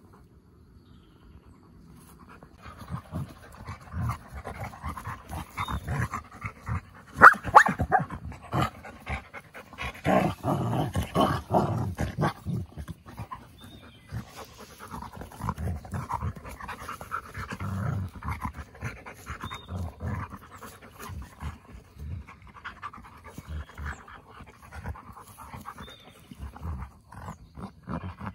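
A husky and wolfdog pups play-wrestling up close: panting and scuffling play noises in irregular bursts, loudest about a quarter of the way in and again just before the middle.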